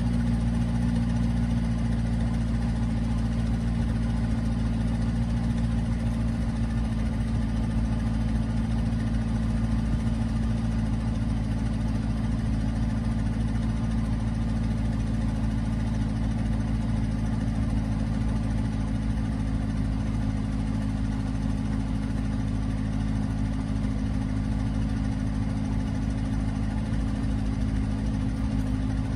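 2006 Aston Martin Vantage's 4.3-litre naturally aspirated V8 idling steadily through its stock exhaust system, holding an even note with no revs.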